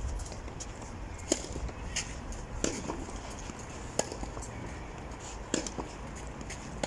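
A few scattered sharp clicks, about five, irregularly spaced, over a faint low steady rumble.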